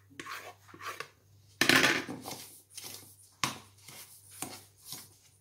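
A metal fork scraping and clinking against a stainless steel bowl, working softened butter into almond powder and sugar for almond cream, with a louder clatter about a second and a half in.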